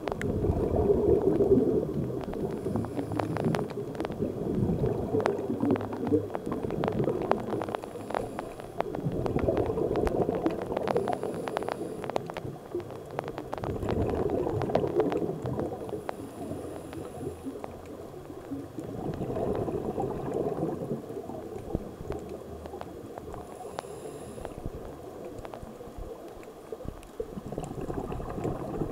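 Scuba regulator exhaust bubbles gurgling underwater, swelling in surges every four to five seconds with each exhaled breath, over a scatter of sharp clicks.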